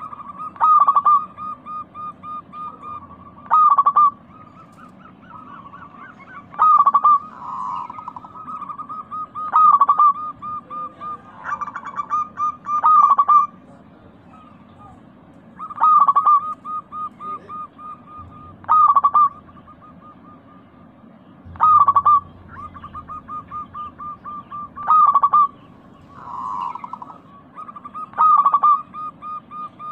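Zebra doves cooing: a loud phrase of a few notes about every three seconds, each trailing off into a run of quick, softer staccato coos.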